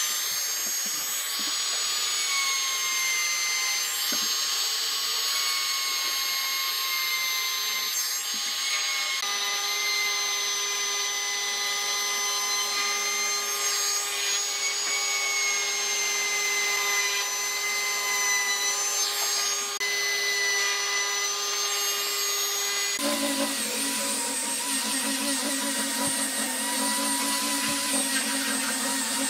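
Handheld trim router running at high speed while routing wood, a steady high whine over a hiss. About 23 seconds in it changes abruptly to an angle grinder with a sanding disc sanding the wood, a lower, rougher running sound.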